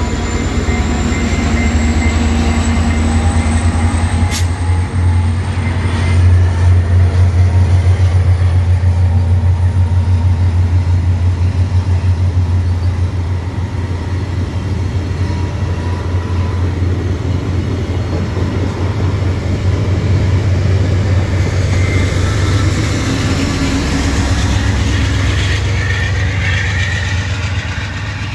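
VIA Rail passenger train with an EMD F40PH-2 diesel locomotive passing close by at speed: a loud, steady rumble of the coaches' wheels on the rails with a fine rhythmic clatter, easing a little partway through.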